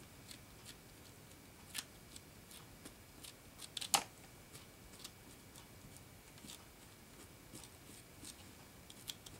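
Microfiber cloth rubbing and dabbing over a stencil on a foil-tape tag: faint scattered scratchy clicks, with a louder tick about four seconds in.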